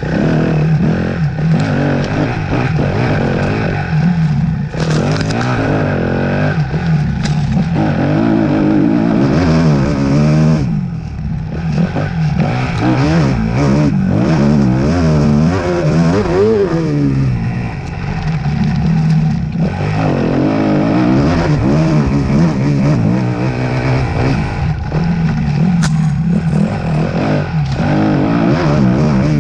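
Off-road motorcycle ridden hard on a race lap: the engine revs up and down over and over as the throttle opens and closes, easing off briefly a couple of times, with rattling and scraping mixed in.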